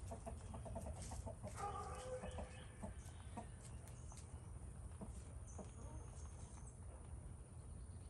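A crowd of domestic rabbits shifting on straw, with soft rustles and small scattered clicks. A short bird call sounds about two seconds in, and a faint high whistle comes near the middle.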